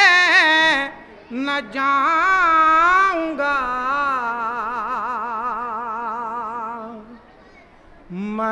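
Unaccompanied solo voice chanting a nauha, a Shia mourning lament, in slow, drawn-out phrases with heavy ornament and wide vibrato. A long wavering held note fades out about seven seconds in, and the next phrase begins just before the end.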